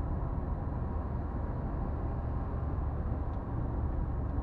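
Steady low rumble of a car driving at highway speed: engine and tyre noise on the road.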